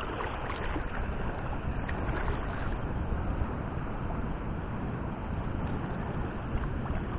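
Steady wind noise on the microphone over the wash of small waves in shallow sea water.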